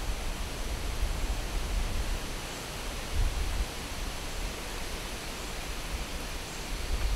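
Steady hiss with irregular low rumbling gusts: wind buffeting the microphone outdoors.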